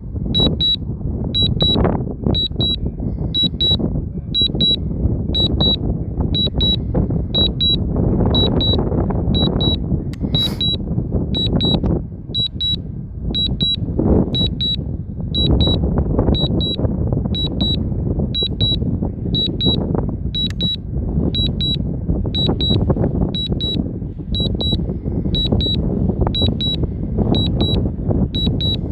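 Drone remote controller beeping steadily, about two high beeps a second, as it signals the drone's automatic landing, over wind buffeting the microphone.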